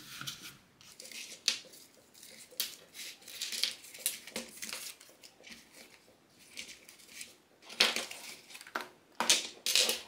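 Rustling and crinkling of packaging with scattered small clicks and knocks, irregular and in short bursts, as the contents of a microphone kit's carry case are handled and taken out.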